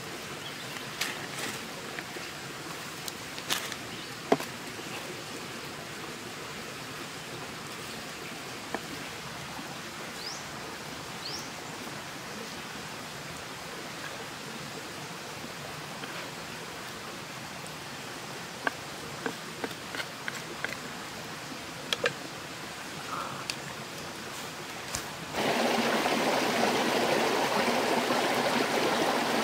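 Light scattered clicks and taps of a salad being tossed in a clay dish with a wooden stick, over a faint steady hiss, with two short rising chirps near the middle. About 25 seconds in, a steady louder rushing of a shallow stream over rocks takes over.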